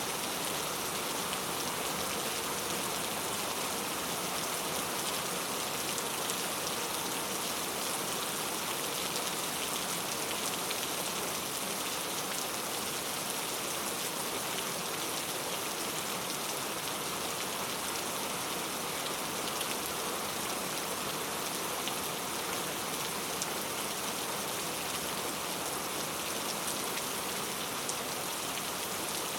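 Steady, even rain falling, a continuous hiss with scattered fine drop ticks.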